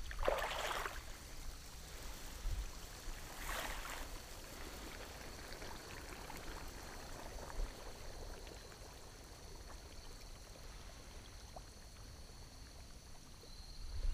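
Quiet outdoor ambience: two brief rustles, one at the start and one about three and a half seconds in, over a steady faint high-pitched hum.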